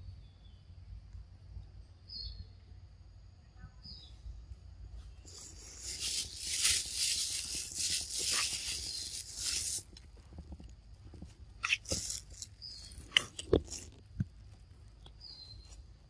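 A macaque moving over dry leaf litter: a few seconds of loud rustling and crunching in the middle, then a scattering of sharp clicks and crackles. A faint steady high insect drone runs underneath, with short high chirps every couple of seconds.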